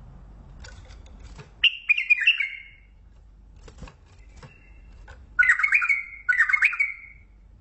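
A bulbul singing three short, rich warbling phrases, each falling slightly in pitch. The first comes about a second and a half in, and the other two come close together near the end. Scattered sharp clicks and a brief thin whistle come between the phrases.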